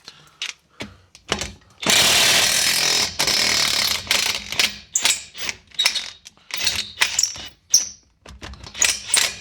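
A power tool runs hard in two long bursts about two seconds in, then a string of short, sharp clicks and knocks follows as the heated seized nut is worked loose.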